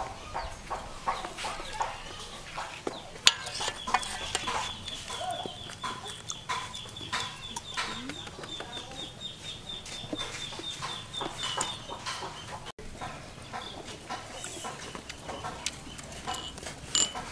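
Chickens clucking, with scattered clicks and knocks of a knife and turtle shells against an aluminium pot, one sharp knock about three seconds in. A high, rapidly pulsing trill runs through the middle.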